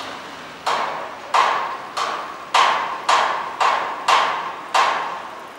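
Eight sharp strikes, about every half-second to two-thirds of a second, each ringing out and fading over roughly half a second.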